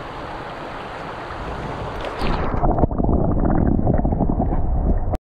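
Rushing water of a fast, riffled stream. About two seconds in the camera goes under the water and the sound turns to a loud, muffled low rumble of the current heard underwater, which cuts off suddenly near the end.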